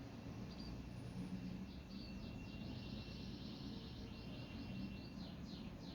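Small birds chirping faintly, with a quick run of repeated falling notes in the second half, over a low steady background hum.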